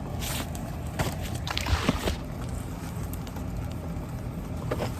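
A person crawling on a crawl-space floor: scuffs, rustles and a few scrapes of hands, knees and clothing, loudest between about one and two seconds in, over a steady low rumble.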